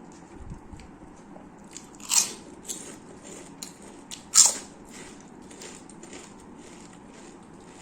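Close-miked eating: crisp, crunchy food bitten and chewed, with two loud crunches, one about two seconds in and another about two seconds later, among lighter crackly chewing.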